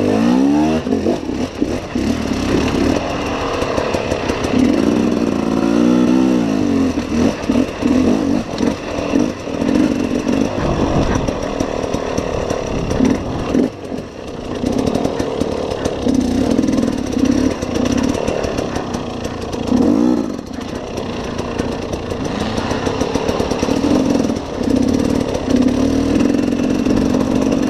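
KTM enduro motorcycle engine being ridden hard, revving up and down over and over as the throttle is worked, with the pitch rising and falling repeatedly.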